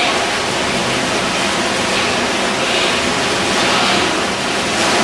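Whirlpool spa jets churning the water: a steady rushing, bubbling noise.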